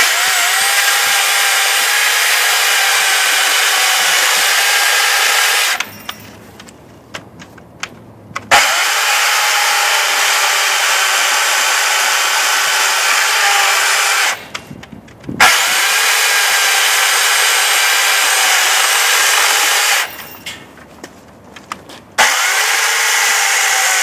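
Stihl MSE 250 C electric chainsaw with a carbide chain cutting into a thick-walled blue plastic pipe in four runs of a few seconds each. The motor runs at a steady pitch while it cuts, and it stops briefly between runs, about 6, 14 and 20 seconds in.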